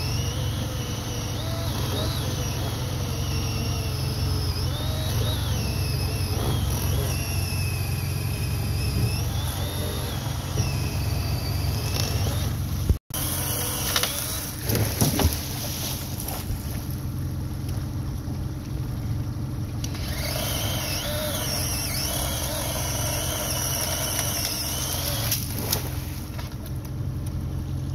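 Cordless chainsaw cutting deadfall limbs, its motor whine rising and falling in runs as it bites into the wood and frees up. Under it is the steady low hum of the jon boat's outboard motor, with a few knocks about two seconds after a short dropout.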